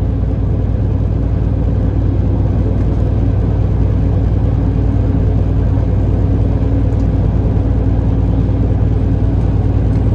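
Semi truck's diesel engine running steadily at cruise with tyre and road noise, heard from inside the cab; a continuous low hum with no change in pitch.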